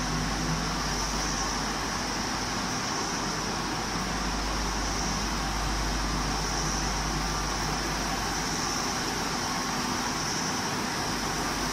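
Steady drone and hiss of running industrial machinery, even and unbroken throughout, with a high hiss over a low rumble.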